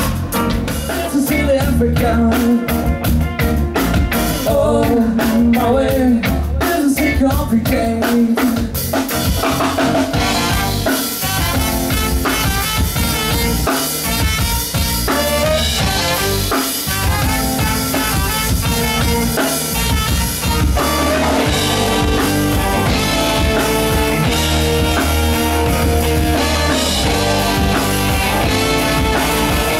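Live band playing amplified music with drum kit, electric guitars and keyboard. In the first part, sharp regular drum hits sit under a wavering melody line. About nine seconds in, the sound thickens into the full band.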